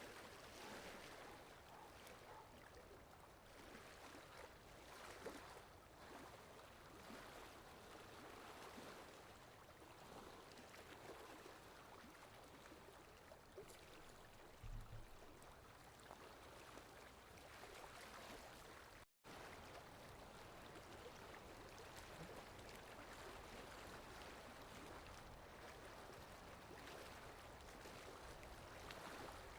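Faint, steady flowing-water ambience like a running stream, played as a sound effect. It cuts out for an instant about two-thirds of the way through.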